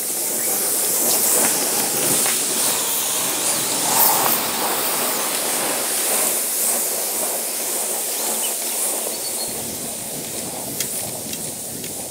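A loaded boat dragged by hand across a field: a continuous scraping hiss of the hull sliding over the ground, easing slightly toward the end.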